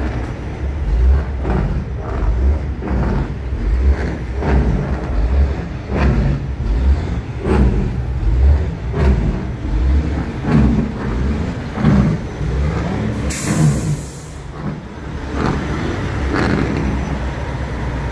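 Semi-truck diesel engine running with a deep, pulsing rumble, and a short hiss of air about two-thirds of the way through.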